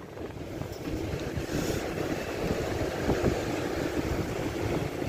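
Wind buffeting the microphone over the steady wash of sea waves breaking on rocks.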